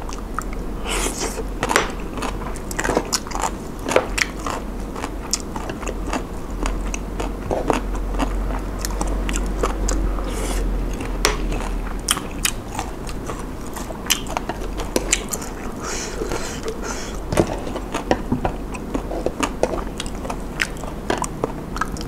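Close-miked chewing and biting of spoonfuls of Thai spicy papaya salad tray with noodles and shrimp: a steady run of short mouth clicks and small crunches throughout.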